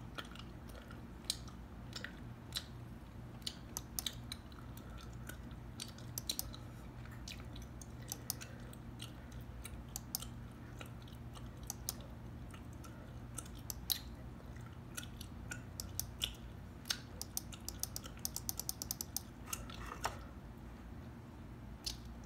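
Close-miked gum chewing: irregular wet clicks and smacks. Near the end comes a quick, evenly spaced run of clicks.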